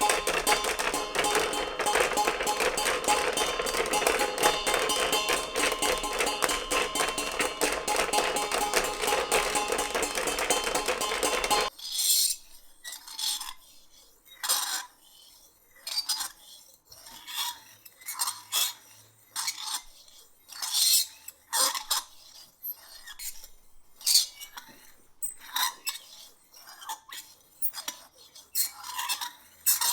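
A dense, rapid clatter for about the first twelve seconds, then a sudden change to separate clinks of metal cutlery against a dish, roughly one a second.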